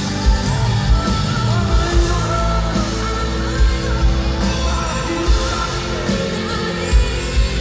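Live band playing with drums and electric guitar while a woman sings lead, heard from the audience in a large arena.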